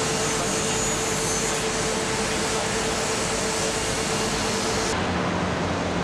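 Steady industrial din of a shipbuilding hall: an even rushing noise with a steady mid-pitched whine. The whine and the high hiss drop away at about five seconds, leaving a duller rumble.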